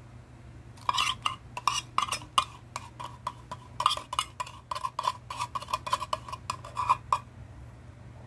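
Metal spoon clinking and tapping against a glass blender jar: a quick, irregular run of ringing clinks starting about a second in and stopping about a second before the end.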